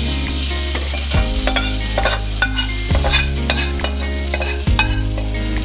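Metal ladle and silicone spatula scraping and knocking in a stainless steel pot as thick egg masala is spooned and spread over layered biryani rice. A few heavy knocks come a second or two apart, over a steady hiss and a low hum.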